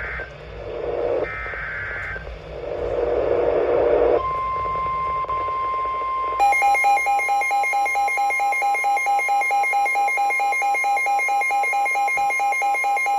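Emergency Alert System broadcast on weather radio. It opens with short digital SAME header data bursts, then the steady 1050 Hz weather radio warning alarm tone sounds about four seconds in. Around six seconds in, a rapid, evenly pulsed electronic alarm beeping takes over and keeps on.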